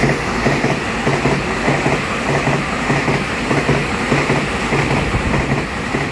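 Taiwan Railway EMU3000 twelve-car electric multiple unit passing through the station close by, its wheels clacking over the rail joints in an even rhythm of about two to three clacks a second over a steady rolling rumble.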